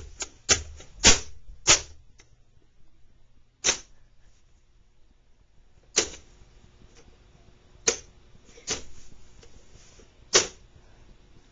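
Toddler's plastic pop-up whack-a-mole toy being hit by hand: about nine sharp plastic clacks at uneven intervals, four of them close together in the first two seconds, then spaced out by a second or two.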